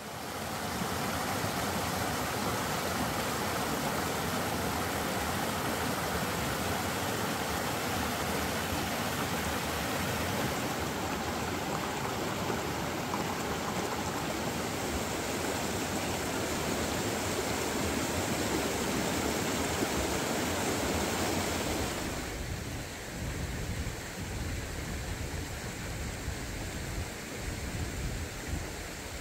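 A fast, muddy river rushing over rock rapids: a steady noise of churning water. About 22 seconds in it drops to a quieter flow with more low rumble.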